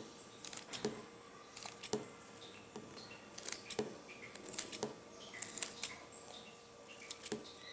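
Scissors snipping thin strips of EVA foam into small squares: a run of soft, crisp cuts coming irregularly, about one a second.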